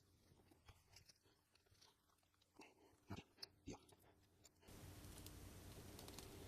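Near silence with a few faint, scattered clicks and taps. About two-thirds in, a faint steady hiss starts.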